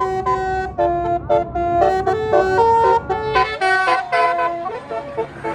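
A tour bus's basuri 'telolet' musical horn plays a fast tune of short, stepped notes over a low engine rumble. The tune stops near the end.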